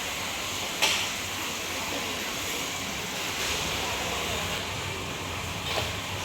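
Food court ambience: a steady rush of background noise, with a sharp clatter about a second in and a smaller one near the end.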